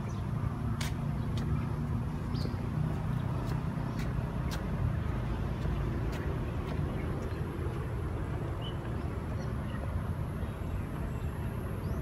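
Steady road-traffic rumble, heavier in the first few seconds, with light regular footsteps on pavement and a few faint bird chirps.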